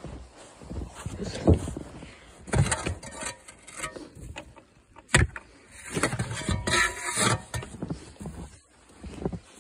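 Snow being cleared off a roof: irregular scraping and crunching noises, with a sharp knock about five seconds in.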